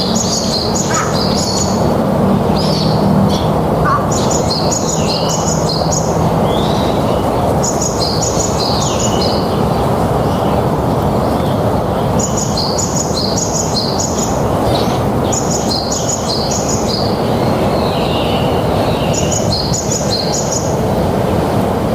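A small songbird repeats a short phrase of quick, high chirps every three to four seconds. A loud, steady rushing noise runs underneath.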